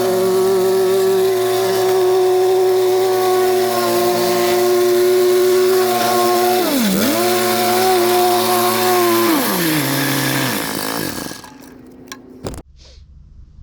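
Gas-powered saw running at high revs, dipping briefly in pitch about halfway through as it bogs under load, then throttled down and shut off near the end, followed by a couple of clicks.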